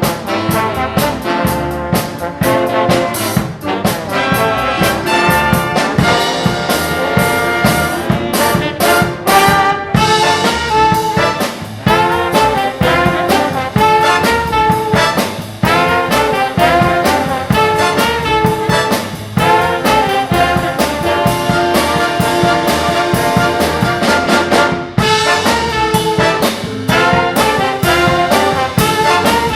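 A live big band playing, with the brass section of trumpets and trombones carrying the tune over a steady beat.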